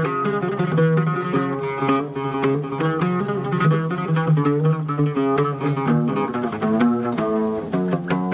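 Oud played alone in an instrumental passage between sung lines: a run of plucked melodic notes.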